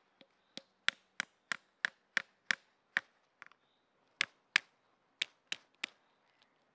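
A small hatchet tapping a walnut held on a flat stone to crack its shell: about fifteen sharp knocks, roughly three a second, with a short pause a little past halfway.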